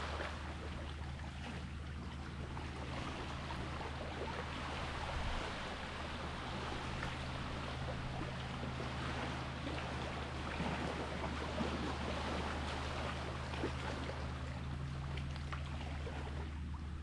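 Seawater washing and splashing with small crackles, over a steady low motor hum.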